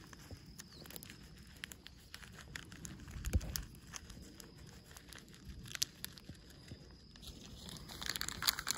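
Paper seed packet crinkling in the hand with scattered light ticks as seeds are shaken out of it, the crinkling growing busier near the end. A single dull thump about three and a half seconds in.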